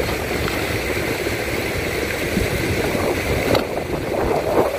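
Steady rushing of water falling from a spout, a small waterfall, at an even level throughout.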